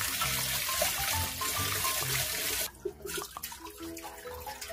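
Cold tap water running onto blanched bracken fern stems in a stainless steel colander as they are rinsed by hand; the running water cuts off sharply a little over two and a half seconds in, leaving light background music.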